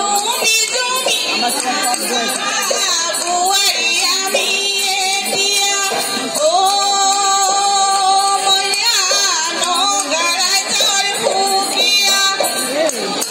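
Bihu folk song sung by a group of women into microphones over a PA system, with a long held note about six seconds in.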